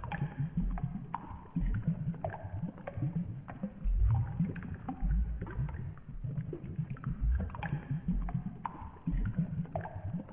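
Low, uneven rumbling and gurgling of water, with many short falling chirps, like bubbles, throughout.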